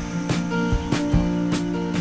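Background music with sustained tones over a steady beat.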